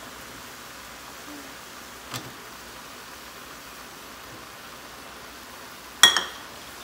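Cabbage and potato frying in a stainless steel skillet, a faint steady sizzle, with a soft tap about two seconds in. Near the end a sharp metallic clank with a brief ring as the metal spatula strikes the pan.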